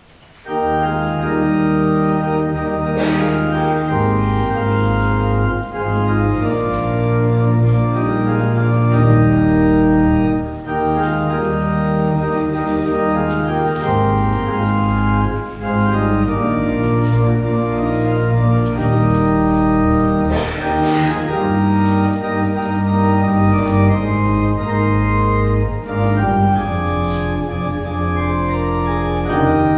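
Church organ playing a postlude of sustained full chords, starting about half a second in, with deep pedal bass notes joining a few seconds later.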